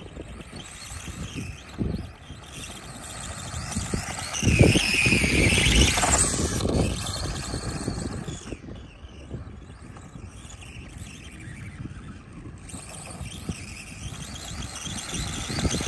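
A 1/4-scale SkyRC SR5 RC dirt bike's electric motor whining as the bike rides over dirt. The whine rises and falls with the throttle and is loudest about four to seven seconds in.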